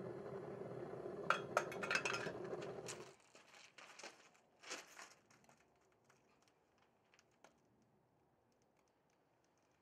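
Small foundry furnace's burner running steadily under sharp metal clinks of crucible tongs against the crucible, then cutting off abruptly about three seconds in. A few more clinks follow as the crucible is handled, then near quiet with faint ticks while the aluminum is poured into the sand mold.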